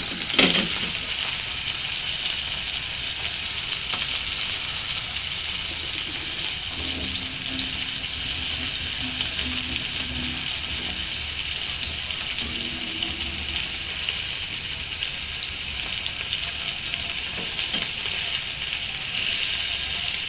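Steak sizzling and frying in a hot pan, a steady hiss.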